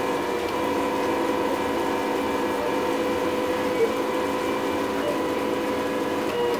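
MendelMax 3D printer running at 30% speed, its stepper motors giving a steady whine of several held tones.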